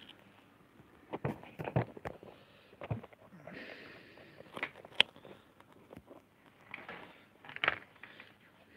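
Irregular clicks and knocks of lino-cutting gouges being handled, picked up and set down on the work table and lino block, with a short rustling scrape near the middle.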